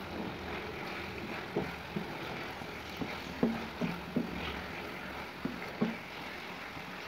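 A wooden spatula stirring and scraping a simmering chicken curry in a metal karahi, with irregular knocks against the pan, over a steady background hiss.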